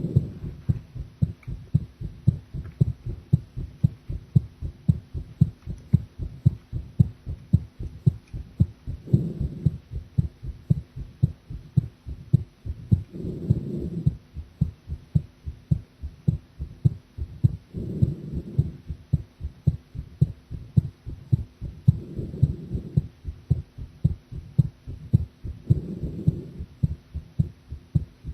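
A woman's heartbeat heard at the chest: a steady run of low, even thumps. A softer, longer rushing swell rises under the beats about every four seconds.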